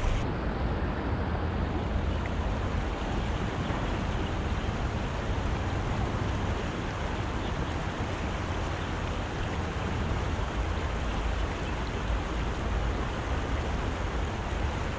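Steady rush of a shallow, rocky river running over stones in riffles.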